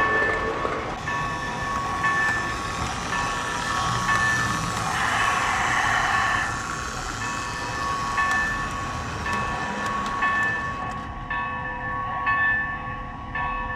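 Prewar Lionel O gauge Blue Comet train with a 226E locomotive running on the track, its motor and wheels giving a steady running rattle that dies down about eleven seconds in as the train stops. Short pitched tones repeat in pulses throughout.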